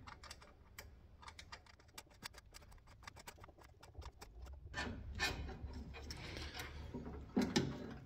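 Rapid light clicks and ticks of wire terminals against the small metal headlight switch of a Willys MB jeep as a wire is connected to it. From about five seconds in come rustling and scraping handling noises, with a louder knock near the end.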